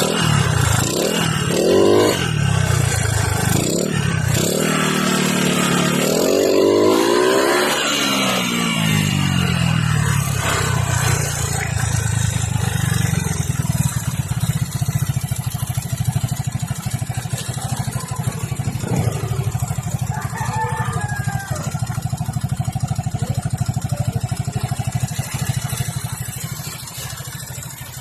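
Suzuki Skydrive scooter engine breathing through an aftermarket Sun 'Silent Killer' power pipe exhaust, revved in several blips that rise and fall in pitch, then settling to a steady idle from about ten seconds in.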